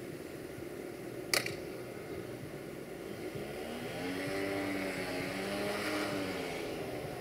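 An engine running steadily in the distance. Its pitch swells up and back down over a few seconds past the middle. A single sharp click comes about a second in.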